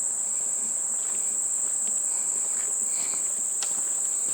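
Insects singing in a steady chorus: one high, unbroken trill that holds level throughout, with a few faint ticks mixed in.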